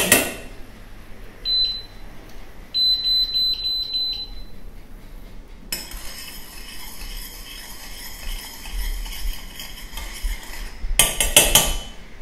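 A sharp knock, then several short high electronic beeps and a held beep from the glass-top hob's touch controls. Then a metal spoon stirs and scrapes steadily in a stainless saucepan, ending with a few quick taps of the spoon against the pan.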